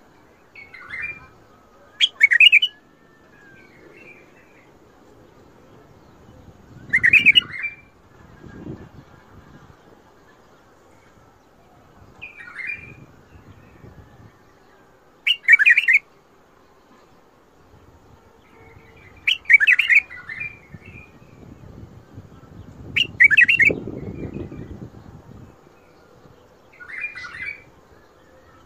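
White-eared bulbul (Iraqi bulbul) singing short whistled song phrases every few seconds. There are about eight phrases, some louder than others.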